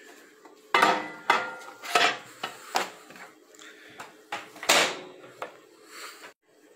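Several sharp knocks and clatters of a microwave door being opened and shut and a wooden-backed plastic fish plaque being shoved inside onto the glass turntable.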